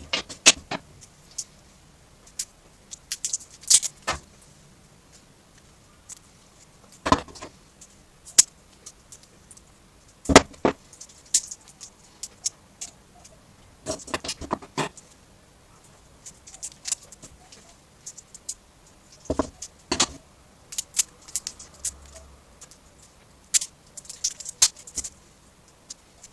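Scattered sharp clicks, clinks and light scrapes from a screwdriver and 18650 lithium-ion cells being handled and pried apart while a laptop battery pack is dismantled, sped up to twice normal speed.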